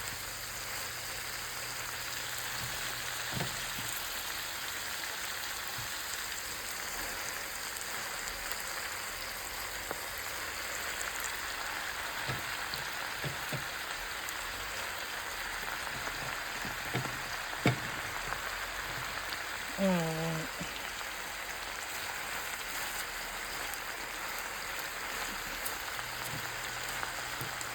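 Spinach sizzling in hot olive oil in a frying pan with sautéed garlic, onion and tomato: a steady, even sizzle, with a few light knocks and a short vocal sound about twenty seconds in.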